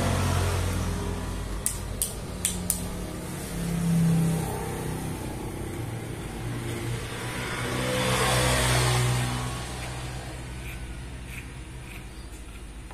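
Corded electric hair clipper buzzing as it is run over short hair, the buzz swelling twice as the blade cuts into the hair. A few sharp clicks come about two seconds in.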